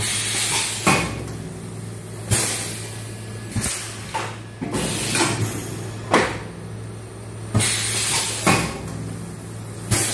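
PET bottle blow moulding machine running: a steady low hum with repeated clunks and short hisses of air, irregularly spaced about a second apart.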